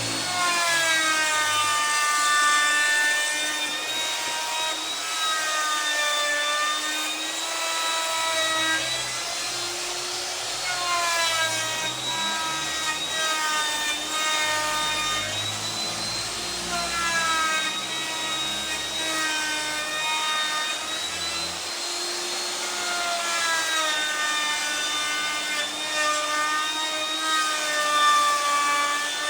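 Electric power tool motor running continuously while cutting wood, its whine sagging in pitch under load and recovering every few seconds.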